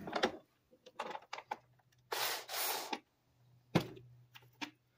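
Hands working at the old plastic top cover of a rear roof-mounted A/C unit: scattered clicks and taps, a rasping noise lasting about a second, about two seconds in, then one sharp knock and a few light ticks.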